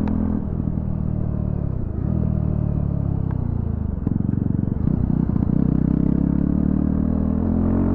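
Yezdi Scrambler's 334 cc single-cylinder engine running with its silencer removed, an open exhaust. The revs fall off twice as the throttle closes, the exhaust pulses separately at low revs about four seconds in, then the throttle is opened and the engine holds higher revs for the last three seconds.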